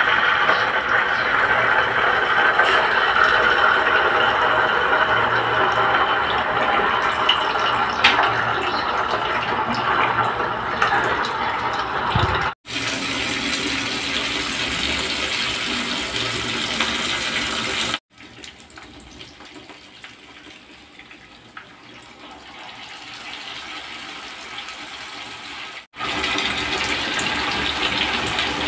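Slabs of tofu frying in hot oil in an electric nonstick frying pan: a steady crackling sizzle. It breaks off abruptly three times and is much quieter for several seconds in the middle.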